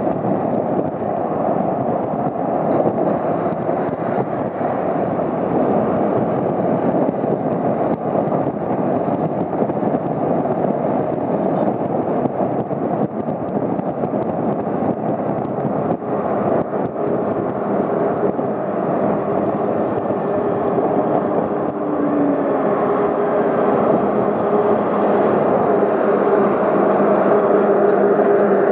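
Honda CBR250R motorcycle on the move: a steady rush of engine, road and wind noise, with no clear changes in speed.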